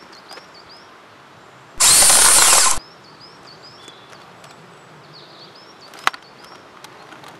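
Airsoft electric rifle (AEG), fitted with a new piston meant to take an M200 spring, firing a loud full-auto burst of about a second with its gearbox buzzing. Faint bird chirps run through the background, and a single sharp click comes about six seconds in.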